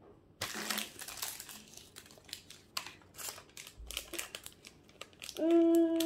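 Foil blind-bag packet of an L.O.L. Surprise toy being crinkled and torn open by hand, a rapid run of crackles and rustles. Near the end a child's short held hum.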